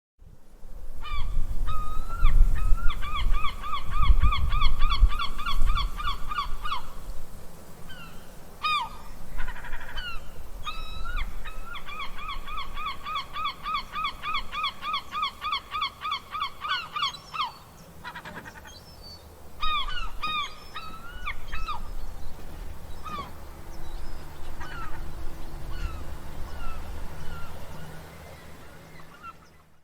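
Gulls calling: two long runs of rapid, evenly repeated cries, each lasting several seconds, then scattered single calls, over a low rumble.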